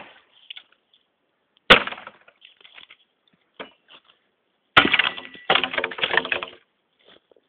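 Tramontina machete chopping into a dead tree: two sharp chops about three seconds apart, the second followed by about two seconds of dry wood cracking and splintering.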